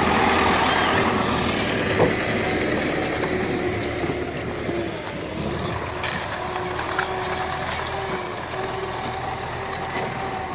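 An engine running steadily with a held hum, easing off gradually, and a single sharp knock about two seconds in.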